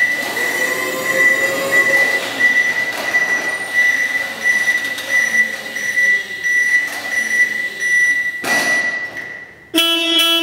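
Still electric counterbalance forklift reversing: its alarm beeps over and over in a high tone while the electric drive motor whines, the whine rising as it pulls away about half a second in. Near the end the beeping stops and a guitar chord of background music rings out.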